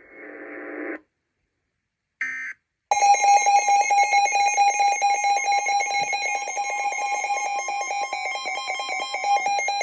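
Emergency Alert System broadcast tones: a brief electronic data burst about two seconds in, then the loud, steady EAS attention-signal alarm from about three seconds in to the end.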